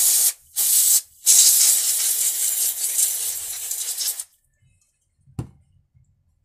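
Aerosol carburettor cleaner hissing through its straw onto a chainsaw carburettor to clean its outside: two short bursts, then one long spray of about three seconds. A single knock follows near the end.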